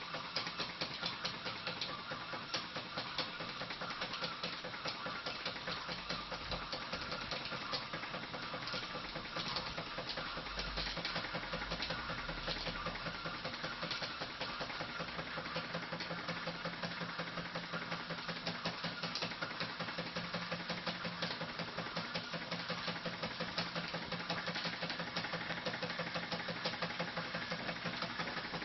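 Wilesco D16 toy steam engine running steadily under steam, its cylinder giving off a rapid, even chuff of exhaust puffs as the flywheel spins.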